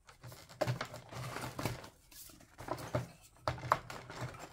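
Hands handling small plastic toy food pieces and a small cardboard box, making an uneven run of light taps and clicks in short clusters.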